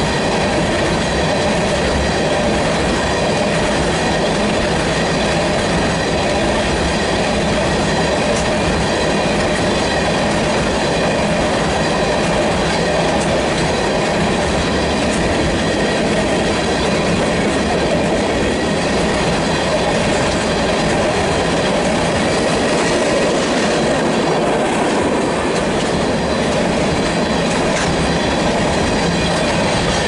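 Freight train of tank cars rolling past close by: a steady, loud rumble and clatter of steel wheels on the rails that does not let up.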